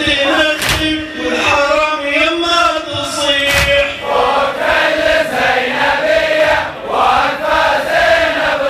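A chorus of voices chanting a Shia Muharram latmiyya (mourning lament) in unison, in sung phrases that rise and fall.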